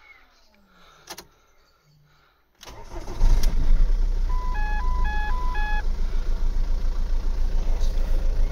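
Ford Focus mk2 engine restarted: a click, a short pause, then it cranks and catches almost at once, about three seconds in, and settles into a steady idle. A two-note warning chime from the instrument cluster sounds three times while the dash warning lights stay on, a sign that the cluster/CAN bus fault has not cleared.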